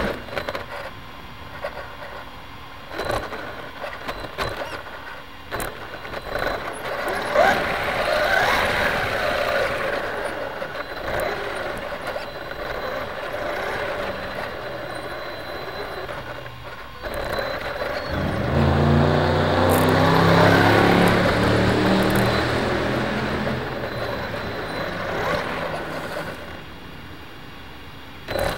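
Vehicle noise with scattered short knocks; about two-thirds of the way in, a deep engine sound swells up, becomes the loudest sound, and fades over several seconds.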